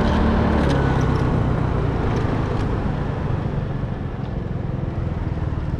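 Motorcycle engine running steadily with a low rumble that eases slightly toward the end.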